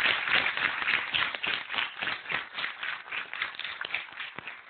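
Audience applauding: dense clapping at first that thins out to scattered claps as it dies away.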